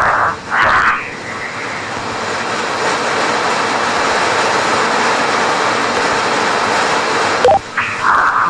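Steady rushing hiss over an open radio link during the freefall, growing slightly louder, cut off near the end by a short beep and a burst of radio voice.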